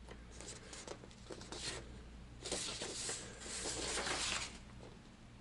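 Sheets of paper rustling as a letter's pages are handled and flipped over, in a few short bouts, the loudest near the middle and about four seconds in.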